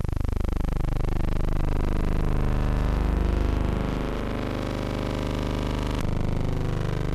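Harsh buzzing noise from a mute film print with no recorded sound: many tones that sweep and cross one another, shifting abruptly about six seconds in.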